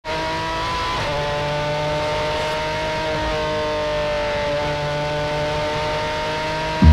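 Prototype race car engine running at high revs on track, a steady, even note that sags slowly in pitch, with a short break in the note about a second in.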